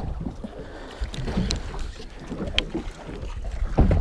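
Wind rumbling on the microphone and sea water slapping against a small boat's hull. A few sharp clicks come through about one to two and a half seconds in, and a heavier knock near the end.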